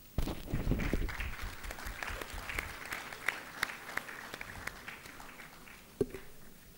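Audience applause that starts at once, is fullest in the first second and thins out to scattered claps over about six seconds, with a single thump near the end.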